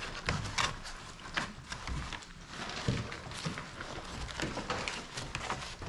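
A litter of five-week-old puppies eating from a feeding bowl and scrambling about on puppy pads. The sound is a string of irregular small smacks, clicks and scuffs, with a few soft thumps.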